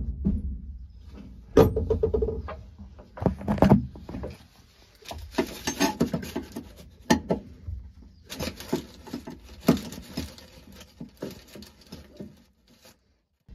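Hand scraper working old sealant and epoxy off the fiberglass around the old through-hull holes inside a boat hull: irregular scraping, tapping and knocking, with louder knocks about two and three and a half seconds in.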